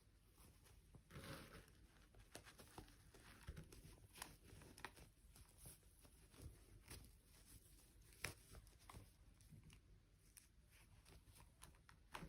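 Faint scattered clicks, taps and soft rustling of a toy doll and its plastic packaging being handled, with a slightly louder click about eight seconds in.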